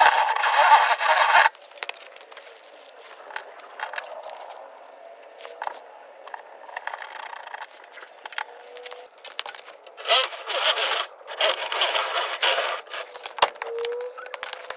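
Rough scraping and rasping of a tool being worked against material, in three loud bursts: one at the start lasting about a second and a half, one about ten seconds in, and another just after, with quieter scratching and a few clicks between them.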